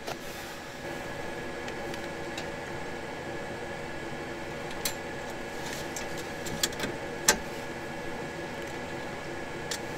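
A steady machine-like hum with faint constant tones, with a few light clicks and taps about five, six and a half and seven seconds in.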